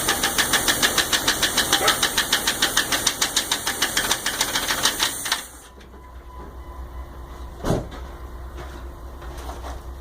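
1999 Jeep 4.0 inline-six idling with a rapid, even ticking. The owner traces it to the number 5 exhaust valve and wonders whether it is a collapsed or stuck lifter or piston slap. About five seconds in the engine stops and the ticking ends, and a single short knock follows a couple of seconds later.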